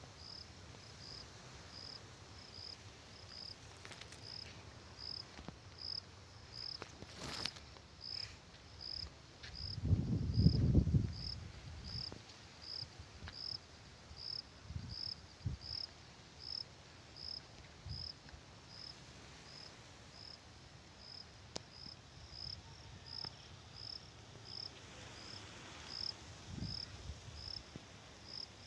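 A cricket chirping at a high pitch in a steady rhythm, about two chirps a second. Soft low thumps and rumbles on the microphone come and go, the loudest about a third of the way through.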